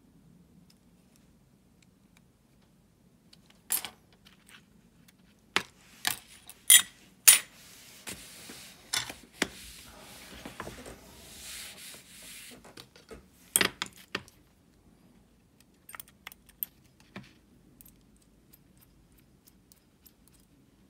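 Small metal baitcasting-reel parts clicking and clinking as they are handled and set down on an aluminium tray, with a soft rustle for several seconds in the middle. The loudest clinks come in a quick cluster about six to seven seconds in.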